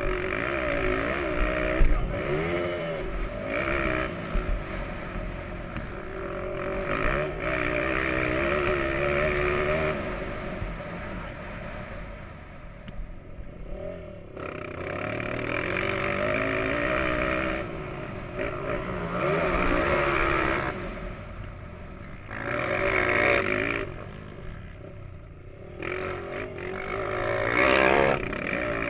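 Motocross dirt bike engine under race riding, with the revs repeatedly climbing hard and falling away as the throttle is opened and shut through corners and straights. It is heard from a camera mounted on the bike itself.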